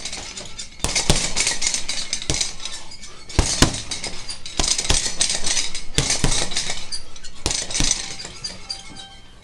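Gloved punches thudding into a heavy punching bag, about a dozen blows at an uneven pace. Each hit sets the bag's hanging chains jingling and clinking, and the jangle tails off near the end.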